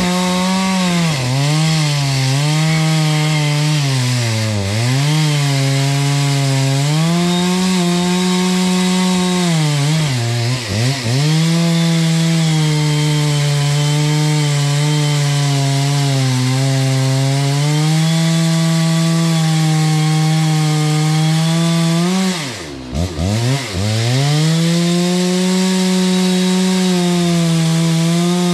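Stihl MS 660 two-stroke chainsaw at full throttle, cutting into a thick tree trunk. Its engine pitch sags under load and recovers several times, dropping most deeply about 23 seconds in before picking back up.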